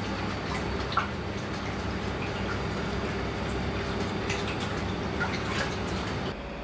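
Steady mechanical hum of kitchen machinery with a few faint scattered clicks and drips. The hum drops away near the end.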